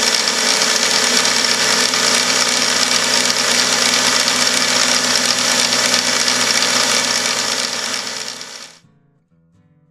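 Milling machine spindle running with a tiny end mill cutting into a metal steam-engine cylinder block: a steady machine noise with a high cutting hiss, fading out near the end.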